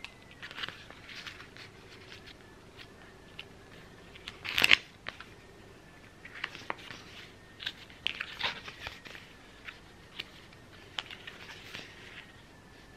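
Paper pages of a sticker book being flipped and handled: soft rustles and flicks, with a louder crinkle about five seconds in.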